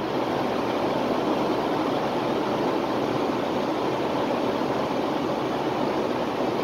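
Steady, even rushing noise of an indoor shooting range's ventilation, with no shots fired.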